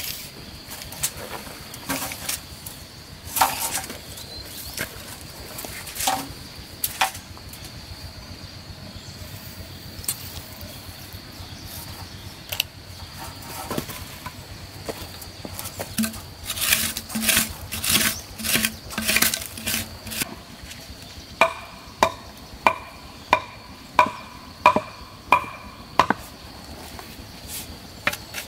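Chopping: repeated sharp strikes of a blade into wood, first scattered, then a quicker run. They end in a regular series of about eight ringing chops, roughly one and a half a second, in the last third. A steady high tone runs underneath.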